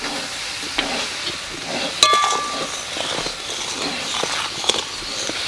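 Tamarind chutney boiling and hissing in a metal kadai while a metal spatula stirs it, with small scraping clicks and one sharp ringing clink of the spatula against the pan about two seconds in.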